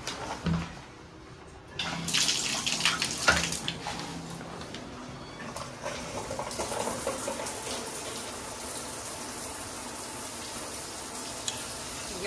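Shower turned on: a knock as the valve handle is turned, then about two seconds in the shower head's spray starts hitting the tile wall, splashy and uneven at first, then settling into a steady hiss of running water.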